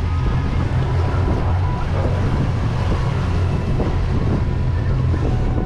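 Fishing charter boat's engine running steadily with a low rumble, with wind buffeting the microphone.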